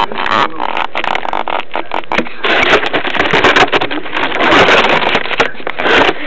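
Radio-controlled car driving through snow: a loud, rough rushing noise full of crackles and clicks.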